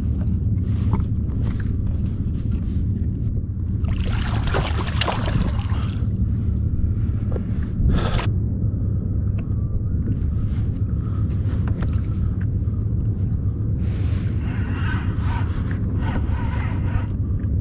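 Steady low rumble of wind and sea water around a small fishing kayak. A burst of splashing comes about four to six seconds in, and one sharp knock follows just before eight seconds. More water noise and handling come near the end.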